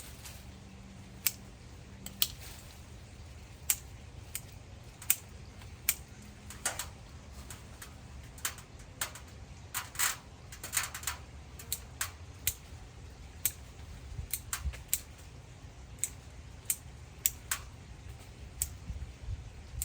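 Pruning shears snipping twigs and small branches: a string of sharp, irregular cuts, roughly one a second, some in quick pairs.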